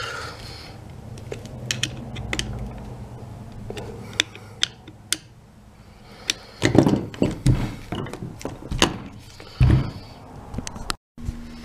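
A hand screwdriver turning the case screws back into a Milwaukee cordless impact driver's plastic housing: scattered small clicks and ticks, with a few louder knocks as the tool is handled and set down about two-thirds through and again near the end.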